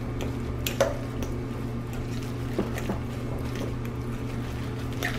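A fork mashing and stirring soft mashed potatoes with milk and butter in a glass bowl: soft, wet squishing with a few light taps of the fork against the glass, over a steady low hum.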